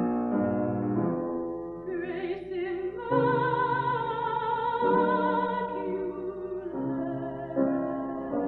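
A woman singing in classical operatic style with vibrato over piano accompaniment, holding one long wavering note through the middle, with new piano chords entering every second or two.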